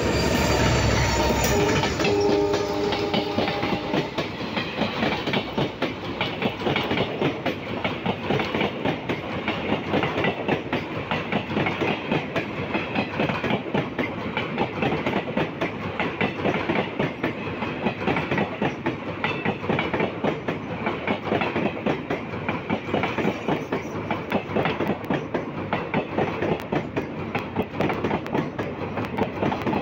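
An EMD WDP4D diesel locomotive, with its 16-cylinder two-stroke engine, passes close by; its engine is loudest in the first couple of seconds. A long rake of passenger coaches follows at speed, with a steady, rhythmic clickety-clack of wheels over the rail joints.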